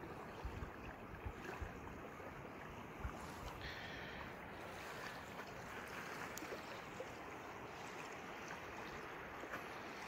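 Faint wind and small waves lapping steadily at a gravel lakeshore, with a few brief low thumps in the first three seconds.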